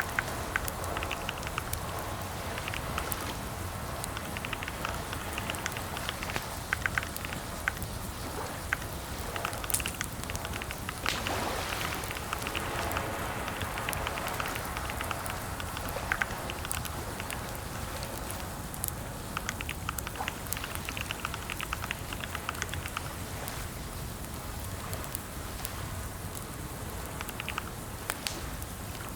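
Computer keyboard typing in short bursts of rapid key clicks with pauses between, over a steady background hiss.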